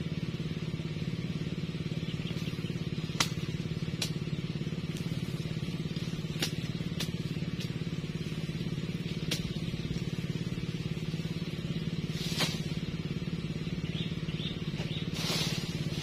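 Machete chopping through thick napier grass stalks, a sharp cut every second or few, with rustling of the cut leaves. A steady engine-like drone hums in the background.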